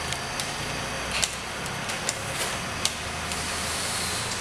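Bamboo poles knocking and clicking as a bamboo tiki-bar roof is shifted into place by hand: several short sharp clicks, the loudest about a second in, over a steady low hum.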